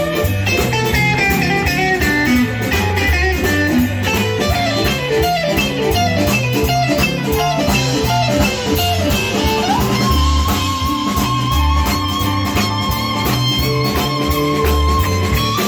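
Background music: blues-rock with electric guitar over a bass line and a steady beat, a long held guitar note about ten seconds in.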